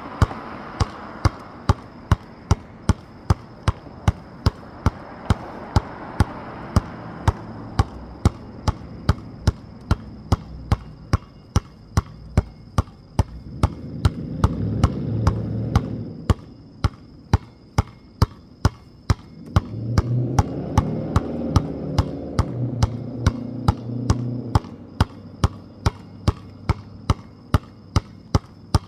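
Basketball being dribbled hard and steadily on hard outdoor ground in a ball-handling drill, about two sharp bounces a second. A low rumble swells up twice under the bouncing, around the middle and again a few seconds later.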